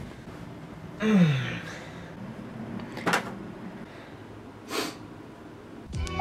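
A man's drowsy groan falling in pitch about a second in, as he wakes, then a sharp click about halfway through and a short rushing sound a couple of seconds later.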